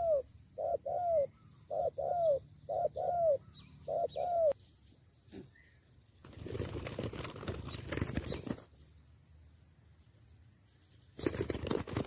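Spotted dove cooing: a run of short arched coos, mostly in pairs, over the first four and a half seconds, followed by a few seconds of scratchy rustling noise.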